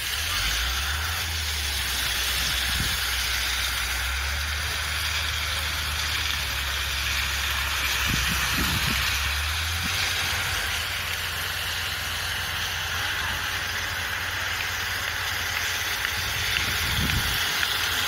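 Electric-motor power trowel running steadily as its float pan turns over wet concrete, a continuous hum with a hiss over it. The low hum shifts about ten seconds in.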